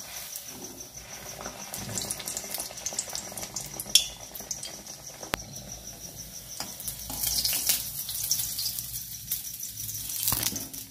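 Suji (semolina) pitha frying in hot oil, a steady sizzle that swells about two-thirds of the way through, with a few sharp knocks of a utensil against the pan.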